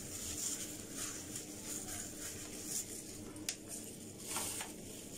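Faint rustling and squishing of plastic-gloved hands working mashed avocado through thick hair, with a short click about three and a half seconds in.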